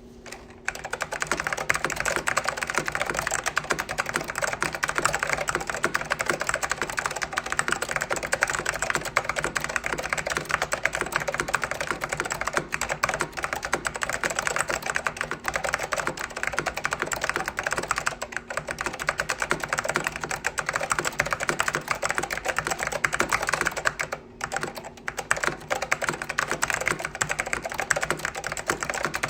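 Apple Extended Keyboard with orange Alps mechanical switches being typed on fast and continuously, a dense stream of key clicks with a brief pause near the end.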